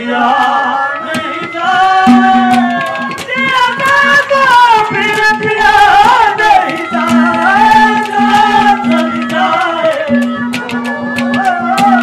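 Live Haryanvi ragni band music: a gliding melody over a held low drone note that drops out and returns a few times, with quick hand-drum strokes.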